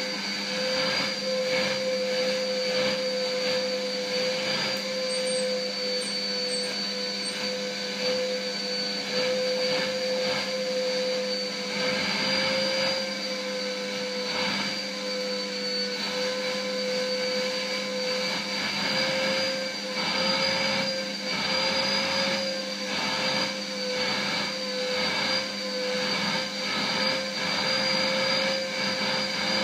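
Vacuum cleaner running steadily with a constant whine, its suction sound swelling and easing as the hose is passed over a Shiba Inu's coat.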